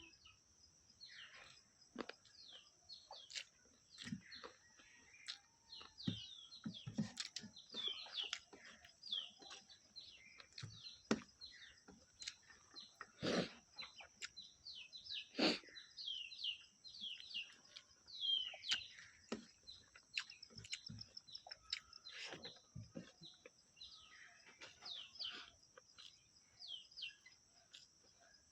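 Small birds chirping repeatedly in short downward-sweeping calls over a steady high-pitched hiss, with scattered sharp clicks.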